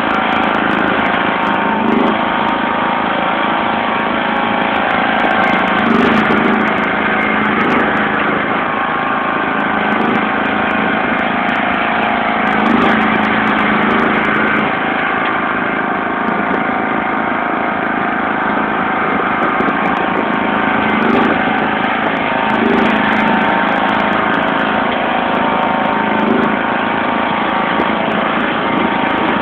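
1991 John Deere LX176 lawn tractor's 14 hp OHV engine running steadily under load as the tractor pushes snow with a front blade, its note swelling slightly every few seconds.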